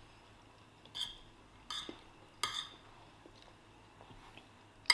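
Cutlery clinking and scraping on a plate: three short sounds about three quarters of a second apart, then a sharp click near the end.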